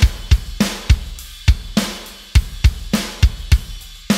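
A drum kit playing a steady groove, the kick and snare replaced by samples through Trigger 2 drum-replacement software: deep, clean kick thumps and sharp snare hits over hi-hat and cymbals.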